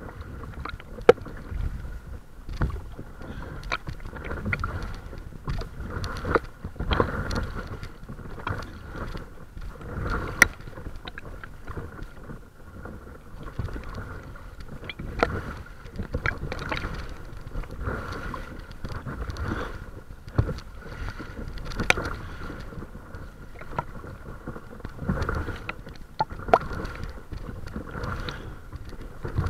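Paddle strokes dipping and splashing every second or two, with water sloshing against the hull of a small paddle craft under way.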